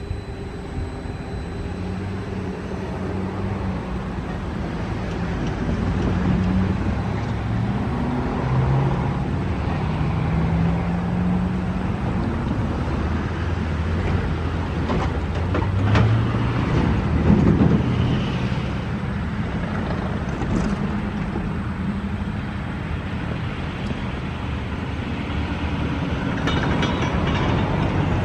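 Low, steady engine rumble with a slowly shifting pitch that grows gradually louder, with a few sharp knocks around the middle.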